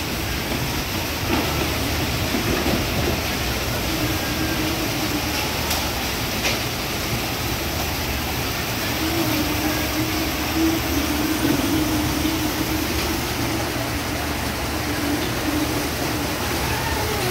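Steady mechanical din of a peach packing line: conveyor belts and rollers running, with a hum that comes and goes and a few light clicks.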